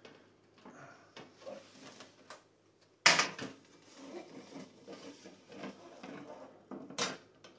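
Metal parts and hardware of an outdoor gas patio heater being handled as a bolt through three metal pieces is tightened down: scattered light clicks and rattling, with a sharp clack about three seconds in and another click near the end.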